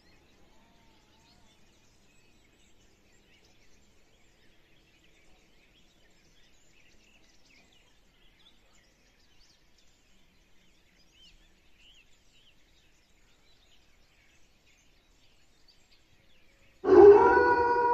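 Near silence with faint, scattered high chirps; near the end a loud, steady, siren-like tone with overtones cuts in suddenly as the electronic track begins.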